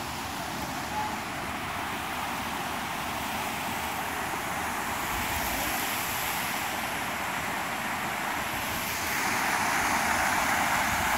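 Water rushing through concrete trout-farm raceways and spilling over the weirs between them: a steady rush that grows louder about nine seconds in.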